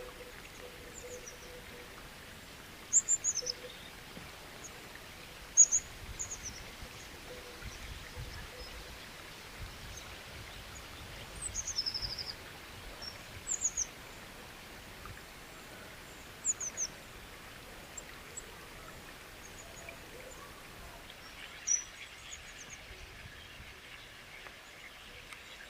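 A steady hiss of running water under birdsong: small clusters of short, high, falling chirps every few seconds.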